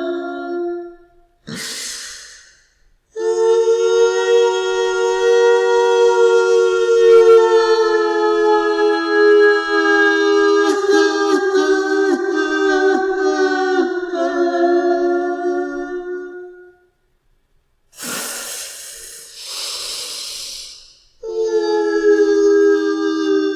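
Horror sound effect of a ghost woman crying: long, drawn-out wails in a high woman's voice, wavering and catching into sobs midway, with breathy rasping gasps about two seconds in and again near the end before the wailing resumes.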